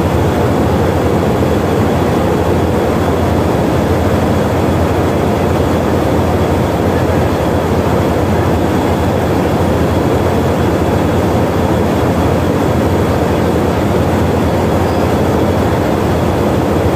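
Class 50 diesel locomotive's English Electric 16CSVT V16 engine idling steadily while the locomotive stands at the platform, heard close beside its engine-room grilles.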